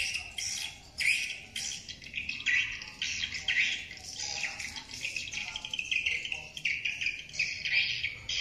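Swiftlet calling recording (track No.78) played through an SH-300 outdoor horn speaker: a dense, unbroken stream of rapid high chirps and twitters, the lure sound used to draw edible-nest swiftlets to a swiftlet house.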